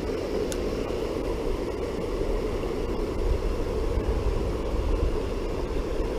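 Steady rushing noise of creek water spilling over a low dam, with a low rumble of wind on the microphone.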